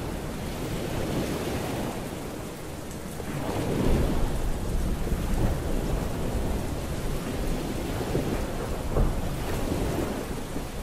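Steady rain with rolling thunder. A low rumble swells about four seconds in and again around nine seconds in.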